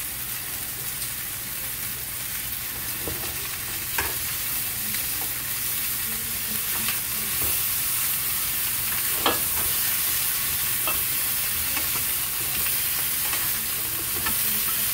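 Chicken drumsticks sizzling in hot oil in a frying pan, with sharp clicks of metal tongs against the pan and chicken as the pieces are turned, the clearest about four and nine seconds in. The sizzle grows slightly louder about halfway through.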